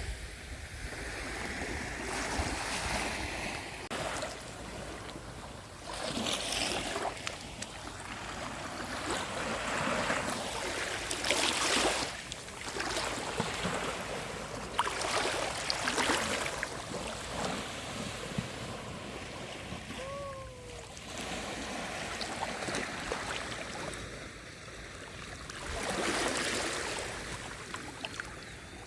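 Small, calm sea waves washing onto a sandy beach, the surf swelling and fading every few seconds.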